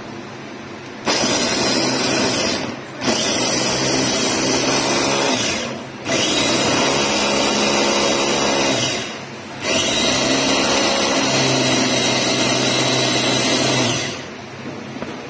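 Electric mini food chopper run in four pulses of a few seconds each, its motor whining as the blades chop garlic cloves in the glass bowl, then winding down between presses.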